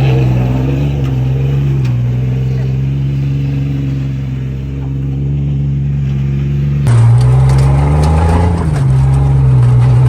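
An engine running steadily at idle. About seven seconds in, the sound changes abruptly, and the engine speed rises briefly and settles back.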